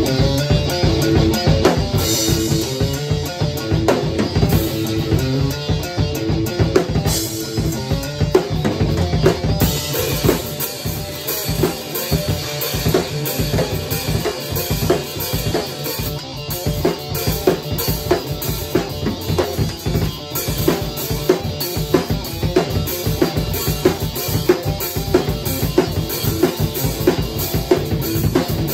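Live jam of an acoustic drum kit and an electric guitar played through an amplifier: a steady beat on kick and snare under a repeating guitar riff. The cymbals grow busier about ten seconds in.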